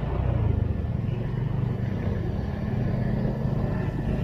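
A road vehicle's engine running steadily while driving, a low even hum with road noise.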